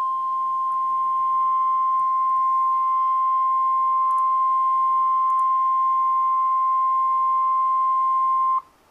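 Emergency Alert System warning tone for a severe thunderstorm warning: one steady, high, single-pitch beep held for about eight and a half seconds, then cut off suddenly.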